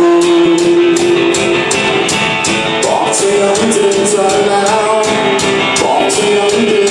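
Live rock band playing: electric guitars holding sustained notes over a steady drum beat with regular cymbal strokes, and a voice singing.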